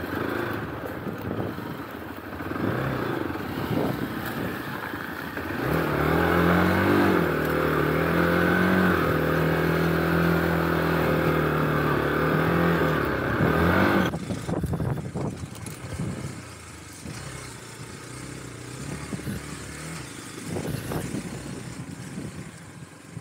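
Hero Xpulse 200 4V's single-cylinder engine running as the motorcycle is ridden over a rough dirt trail, with clatter and knocks. About six seconds in the engine settles into a loud, steady note held for several seconds, then at about fourteen seconds it drops suddenly to quieter running with scattered knocks.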